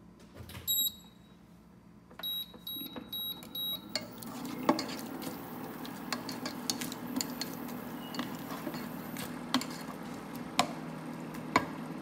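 A few short electronic beeps from the glass-top cooktop's touch controls: one near the start, then about four in quick succession. From about four seconds in, ground onion sizzles steadily in hot oil, with a plastic slotted spatula clicking against the pan now and then as it is stirred.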